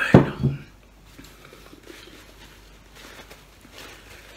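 A sharp knock and a short, low throaty sound right at the start, just after a drink of water, then faint rustling as a paper napkin is handled and unfolded.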